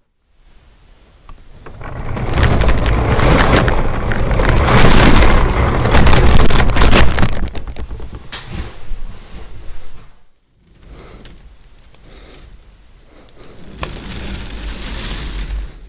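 Plastic K'NEX roller coaster car carrying a laptop, rolling and rattling over the K'NEX track, heard through the laptop's own microphone. The rumble is loudest from about two to eight seconds in, drops out briefly near ten seconds, then goes on as a quieter rattle.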